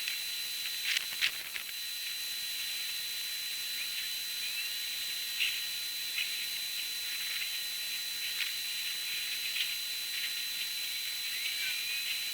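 Outdoor storm-watching audio sped up 30 times along with a time-lapse, which turns it into a steady high hiss with a thin constant whine, scattered short clicks and a few brief chirps.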